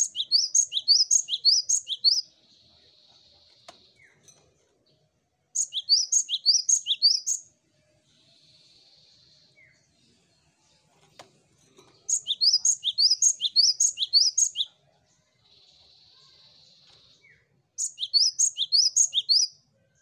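Cinereous tit (gelatik batu, the Asian form of the great tit) singing: four bouts of a fast, repeated two-note phrase, each bout about two seconds long. A softer hissing buzz fills the gaps between bouts.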